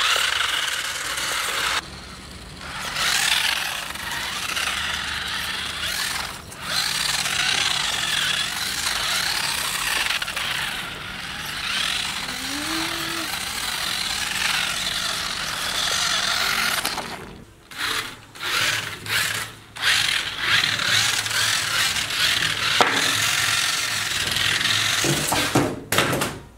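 Homemade RC drift car's small electric motor whirring as the car drives and slides, with its tyres scrubbing across the floor. The sound cuts off and picks up again several times, with a run of short stop-start bursts about two-thirds of the way through.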